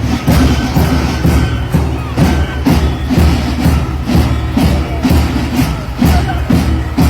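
Ghosh marching band playing, its drums beating a steady march rhythm of about two to three strikes a second.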